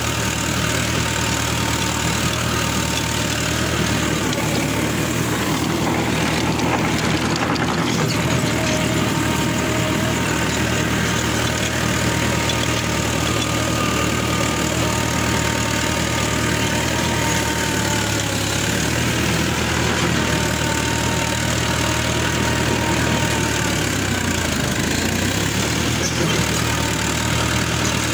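Tractor engine running steadily, heard from the driver's seat, its note dropping briefly about three-quarters of the way through and then picking back up.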